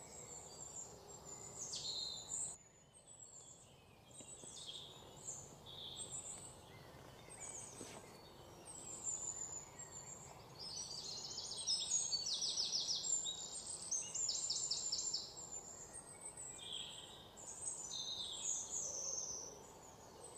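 Small birds chirping repeatedly in short high calls, with a rapid trill in the middle, over faint steady outdoor background noise.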